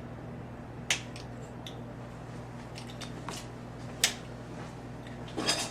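Scattered sharp clicks and small snaps of hands working at the little end plugs in the mixing valve kit's fittings to get them out, the loudest about four seconds in and a quick cluster near the end, over a steady low hum.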